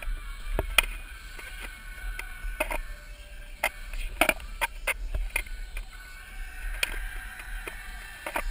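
Freestyle skateboard on concrete: the wheels rolling with a low rumble, and sharp, irregular clacks as the board and wheels strike the ground during tricks.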